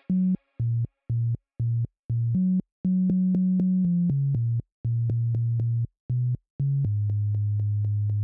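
Background electronic music: a synthesizer bass line of short separate notes, about two a second, that give way to longer held low notes in the second half.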